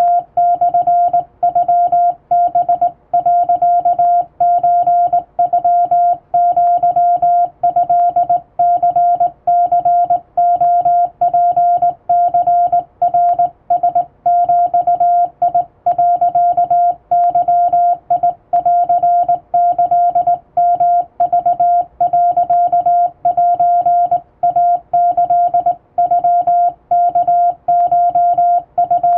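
Japanese (wabun) Morse code sent by hand on a straight key, heard as a steady mid-pitched sidetone beeping on and off in dots and dashes. Brief pauses fall between characters about every second.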